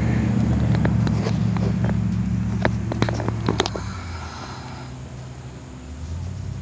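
A steady low mechanical hum from a running motor, easing off a little past the middle, with a scatter of sharp clicks in the first half.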